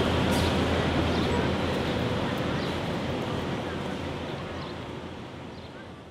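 Busy city street ambience: a low traffic rumble under the indistinct chatter of passers-by, fading out steadily toward silence.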